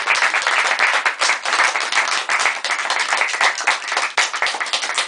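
Small audience applauding, dense hand claps running together without a break.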